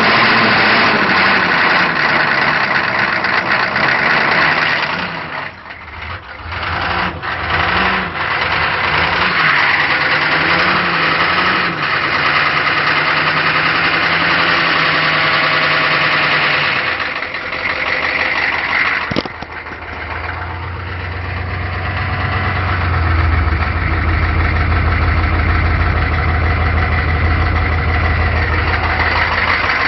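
Cold GM 6.5 L turbo diesel cranked on the starter for a long stretch, its pitch wavering. It then settles into a steady, deep-running diesel idle for the last third.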